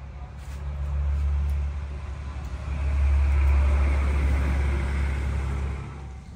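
A motor vehicle passing by: a low rumble with tyre hiss that swells, peaks about halfway through and fades near the end.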